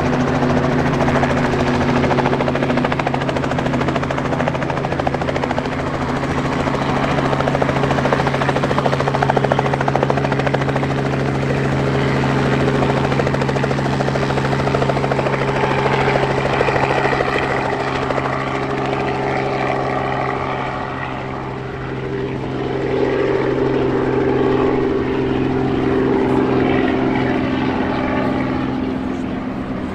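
Small piston-engine helicopters at close range: a steady engine and rotor drone, first from a light ultralight helicopter flying low, then from a Robinson R44 hovering low and climbing away. The sound dips briefly and shifts in tone about two-thirds of the way through.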